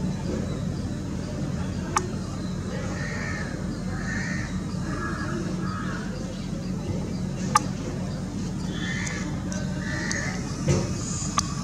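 Birds calling outdoors over a steady low background hum: about four short calls in a row a few seconds in and two more near the end. Two sharp clicks stand out, one early and one past the middle.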